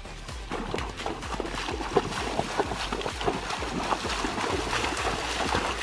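A horse walking through shallow water, its hooves splashing and sloshing in an uneven run of splashes.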